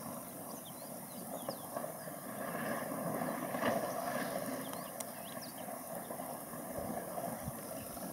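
Water splashing and sloshing as a herd of African elephants wades and plays in a dam, swelling to its loudest about three seconds in.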